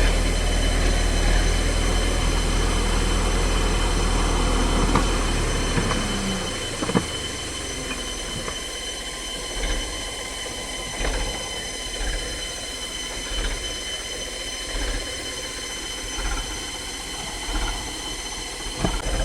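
Bulldozer at work: its heavy diesel engine runs loudly for about six seconds, then eases off. A steady high-pitched whine runs throughout, and once the engine eases, short knocks come about every second and a half.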